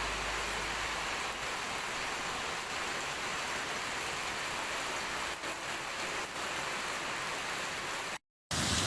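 Heavy rain pouring down steadily, a dense even hiss. The sound cuts out for a moment near the end.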